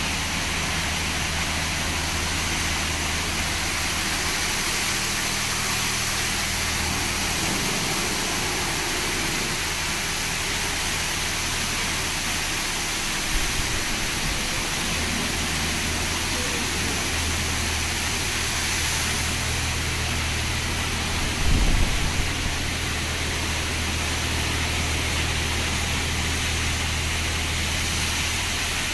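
Laser Wash PE-M9 touchless car wash spraying high-pressure water over a car: a steady hiss of spray over a low machine hum, with a brief thump about two-thirds of the way through.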